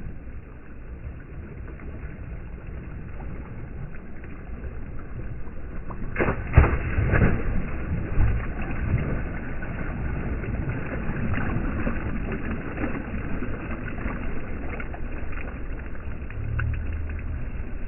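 Pool water splashing as a swimmer throws herself backwards into it, loudest about six seconds in, over a steady rumble of wind on the microphone.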